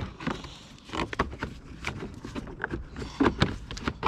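Irregular clicks, taps and knocks of small parts and tools being handled, several a second, a little louder about three seconds in.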